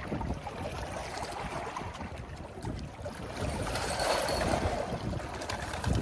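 Wind buffeting the microphone over a steady wash of water, swelling louder for a second or so around the middle.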